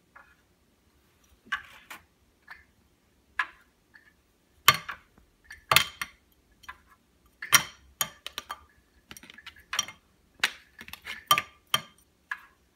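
Irregular sharp clinks and rattles as a cat bats a hanging object with its paw, a dozen or so strikes with the loudest in the middle.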